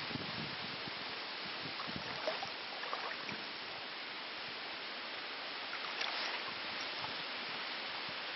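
Steady rushing of a shallow stream's flowing water.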